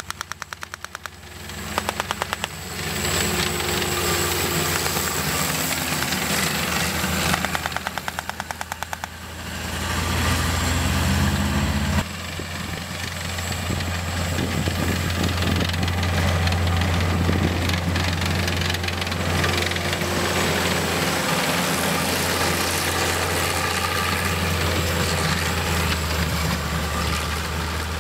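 M4 High Speed Tractors' six-cylinder Waukesha petrol engines running steadily as the tracked tractors drive over sandy ground. A fast, even rattling comes and goes twice in the first ten seconds, and the sound changes abruptly near the middle.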